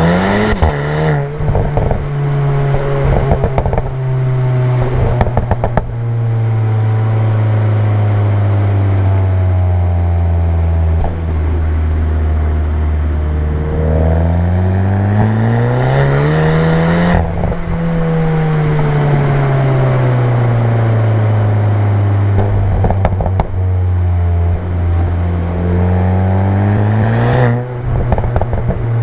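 Seat Leon Cupra 290's turbocharged 2.0-litre four-cylinder on its stock exhaust, driven: the engine note climbs in the first second, holds a steady drone while cruising, climbs again about halfway through and then slowly falls, and rises once more near the end. Short bursts of crackling come a few times.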